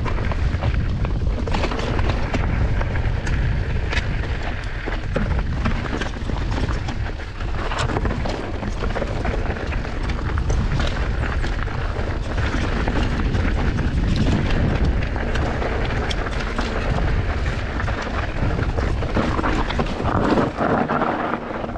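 Mountain bike descending a rough enduro trail at speed: wind buffeting the microphone as a steady heavy rumble, with many sharp clicks and knocks from the tyres and bike rattling over rocks and roots.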